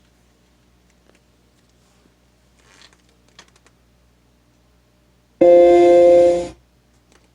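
An old Macintosh system sound played through a Logitech Z906 speaker system: one short electronic chord, about a second long, that comes in suddenly at full level and then fades out, after a few seconds of faint speaker hum and a couple of light clicks.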